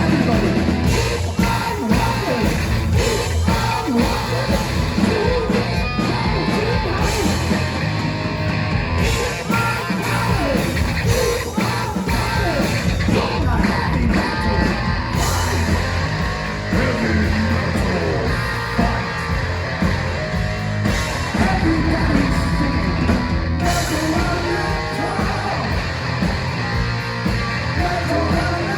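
Heavy metal band playing live at full volume: electric guitars, bass and drums pounding on, with singing over the top.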